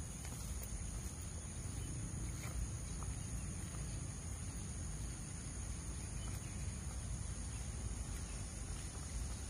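Outdoor ambience: a low wind rumble on the microphone under a steady, high-pitched insect drone, with a few faint footsteps on the dirt path about two to three seconds in.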